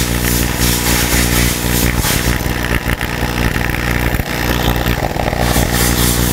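Metal disintegration machine burning through a broken tap, its electrode arcing under a stream of pumped water: a loud, steady electrical buzz with irregular crackling and sputtering.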